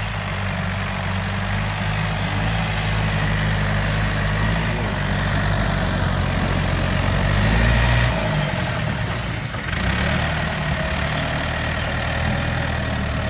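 Yanmar EF453T tractor's diesel engine running steadily as it drives a rear rotary tiller through the soil. The engine note swells about eight seconds in, then dips briefly.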